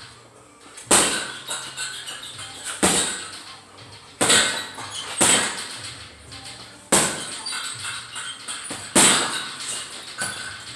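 Boxing-glove punches landing on a chain-hung leather heavy bag: about seven hard blows spaced one to two seconds apart, each a sharp thud followed by a brief jangle of the hanging chains, with lighter taps in between.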